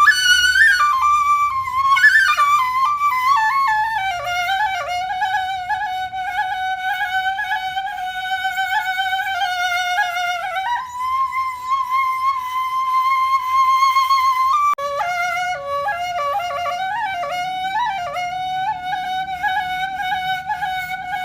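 Background music: a flute playing a slow melody, long held notes with a slight wobble between ornamented runs, over a soft low drone.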